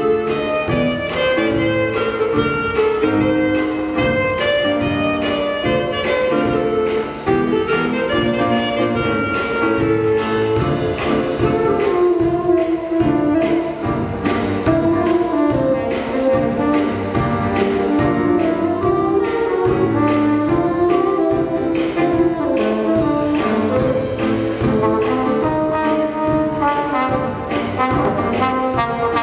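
Jazz band playing, with saxophones, trumpets and trombones together over a steady beat.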